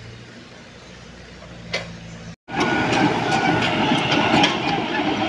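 A mini excavator's diesel engine runs steadily. About halfway in, after a sudden break, a Komatsu PC78US mini excavator is heard close up, its steel crawler tracks clanking and rattling loudly with many sharp clicks and an intermittent squeal as the machine travels.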